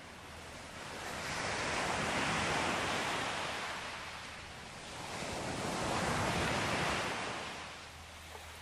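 Ocean waves washing onto a beach: two swells of surf that rise and fade, about four seconds apart.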